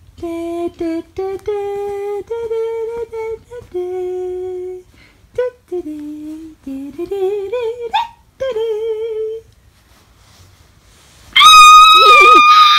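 A person humming a wordless tune in short held notes. Near the end, a loud, high, sustained scream.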